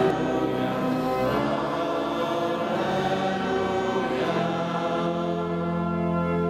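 Choir singing liturgical music in held, sustained notes, echoing in a large church.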